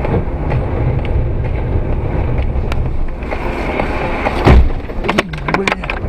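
Steady road and engine noise of a car driving on a highway, heard from inside. About four and a half seconds in comes a heavy thump, the loudest sound, followed by a quick run of sharp knocks and a short wavering low sound.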